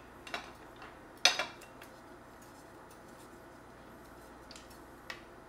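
Kitchenware clinking as a bowl and chopsticks are handled over a soup pot: one sharp, loud clink about a second in, with fainter knocks just before it and near the end.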